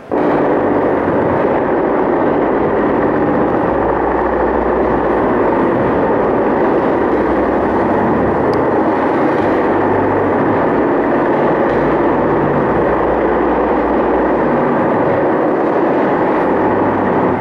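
A sound installation playing through loudspeakers: a loud, dense, rumbling drone with a low bass that swells and fades underneath.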